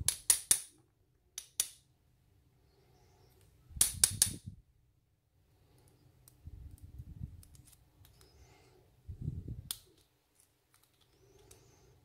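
Steel tweezers clicking against a brass lock cylinder and its small pins as the pin stacks are picked out of the chambers during disassembly. A few scattered sharp metallic clicks, with a quick cluster about four seconds in, and soft handling rustle between.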